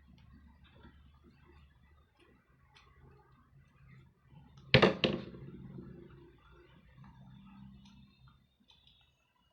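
Faint rustling and small clicks of paper being handled and pressed while a paper model part is glued on, with one sharp double knock about halfway through that rings out briefly.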